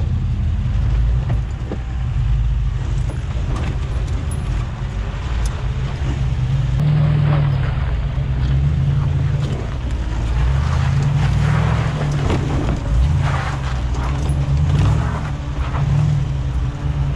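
The FJ40 Land Cruiser's Holden L77 V8 running at low revs, swelling and easing as it crawls along a dirt off-road track, with scattered crunching from the tyres on dirt, stones and grass.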